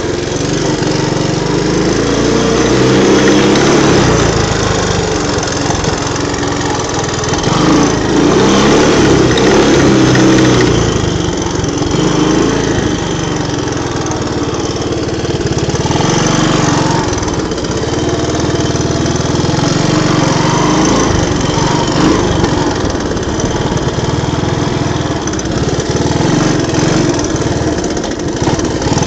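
Honda three-wheeler's small engine running under way, revving up and down as the throttle is worked, loudest a few seconds in and again around the middle.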